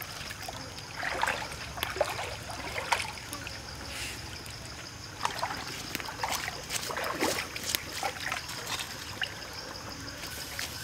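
A stream trickling and gurgling, with a scattered series of small plops and splashes over a steady rush of water and a thin high tone.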